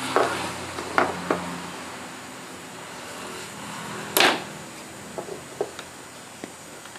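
Scattered light knocks and clinks of handling on a workbench, a louder one about four seconds in, over a faint low hum.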